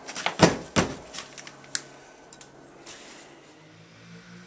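Sharp knocks and clatter: a handful of hits in the first second, the loudest two about a third of a second apart, then a few lighter taps and clicks.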